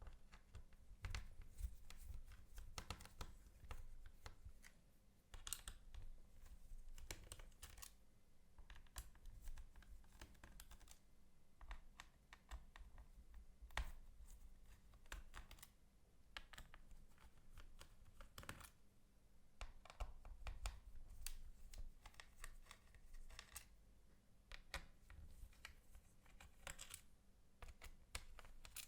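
Faint, irregular clicks and taps of hands and small tools working on a laptop's casing.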